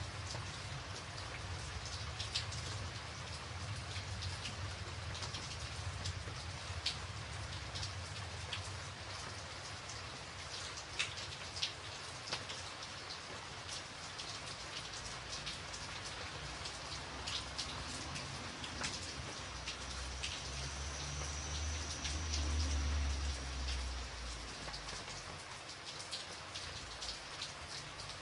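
Steady rain falling, with many individual drops ticking sharply close by on a surface. A low rumble swells and fades about three quarters of the way through.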